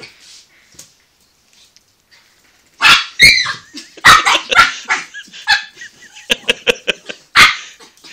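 A puppy barking in a quick run of sharp, repeated barks while it squares off with a cat, starting about three seconds in.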